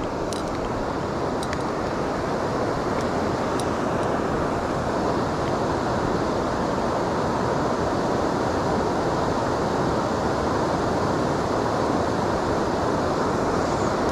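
River water rushing steadily past. A few faint ticks sound in the first few seconds.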